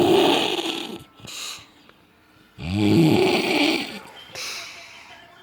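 A man snoring heavily: two long, loud, rattling snores about three seconds apart, each followed by a softer, shorter breath.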